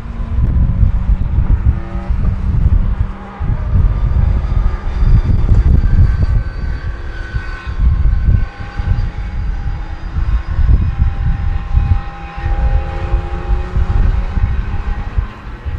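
Race car's 6.0-litre W12 engine running on track, its note rising and falling several times, half buried under heavy wind buffeting on the microphone.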